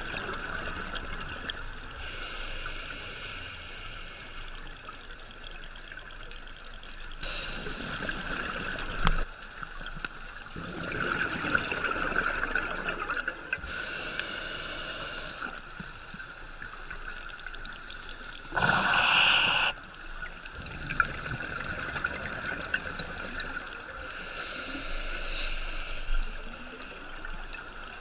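Scuba regulator breathing underwater, heard through a GoPro's waterproof housing: exhaled bubbles come in bursts every few seconds over a steady hiss.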